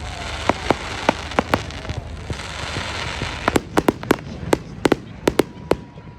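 A fireworks display: a rapid, irregular string of sharp bangs and pops over a steady crackling hiss, with a faint steady whistle near the end.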